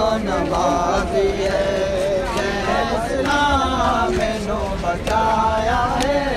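Men's voices chanting a noha, a Shia mourning lament, in a wavering melody, over the low noise of a large crowd.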